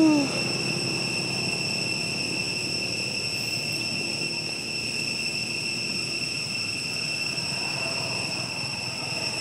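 Steady chorus of insects, a continuous high-pitched drone of several even tones. There is a brief, low, falling call right at the start.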